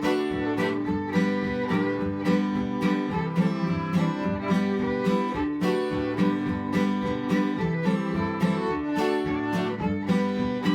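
Old-time string band instrumental: picked acoustic guitar with fiddle, playing a brisk, steady tune.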